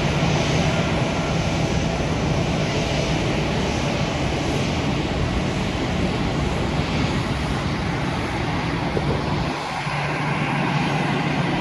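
Jet airliner's engines running at take-off power, a steady, loud noise with a low hum underneath. The low hum drops briefly about ten seconds in, then returns.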